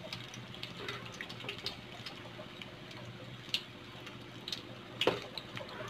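Battered green chilies deep-frying in hot oil: a steady sizzle full of small crackling pops, with one louder click about five seconds in.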